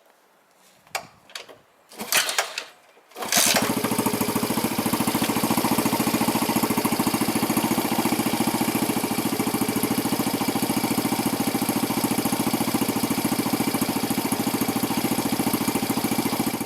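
Loncin LX152FMI 125cc long-stroke single-cylinder engine in a Honda Magna 50: a few knocks and clicks, then it catches about three seconds in and settles into a steady idle with a fast, even pulse.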